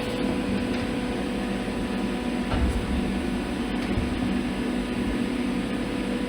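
Welding arc burning steadily with a continuous buzzing hum and hiss.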